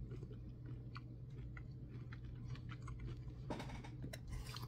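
A man chewing a mouthful of loaded fries with steak, shrimp and crab, quietly, with faint small mouth clicks over a steady low hum.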